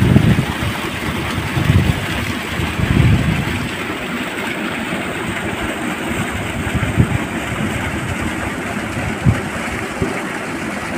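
Steady rush of water pouring from a pipe outlet into a concrete canal, with wind buffeting the microphone in the first few seconds.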